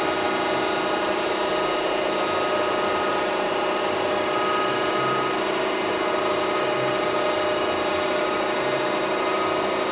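A 1993 Okamoto ACC-1224DX automatic surface grinder running steadily, its hydraulic pump and spinning grinding wheel giving an even machine hum with a steady whine.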